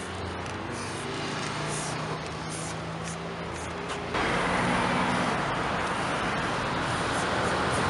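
Street traffic noise with the steady low hum of vehicle engines, and short high hisses of an aerosol spray-paint can. About four seconds in, the traffic noise suddenly becomes louder.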